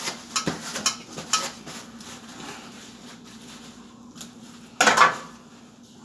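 Metal clinking and knocking as tools and metal parts of the water heater are handled: a run of light clicks and knocks, then one louder clatter about five seconds in.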